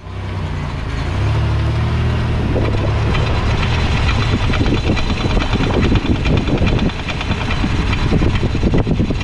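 Van driving, the low drone of its engine and tyres overlaid with rapid, irregular clunking and rattling from the front left wheel that sets in about two and a half seconds in. The owner does not know what is causing the noise.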